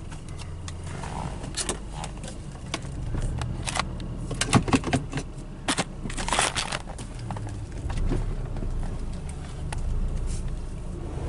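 Car engine idling low, heard from inside the cabin as the car creeps forward slowly, with scattered light clicks and knocks. The clicks are densest about four and a half to five seconds in.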